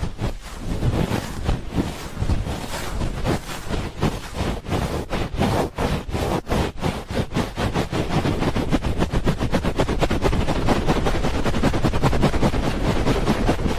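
'Helicopter' ASMR ear-rubbing: hands stroke rapidly over an ear microphone, making a loud, rhythmic whooshing chop. The strokes speed up and blur into a continuous flutter after about eight seconds.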